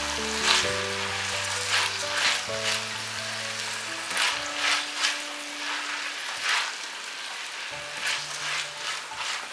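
Soaked basmati rice sizzling as it fries in oil in a stainless steel pan, with repeated scraping strokes of a silicone spatula stirring the grains across the pan.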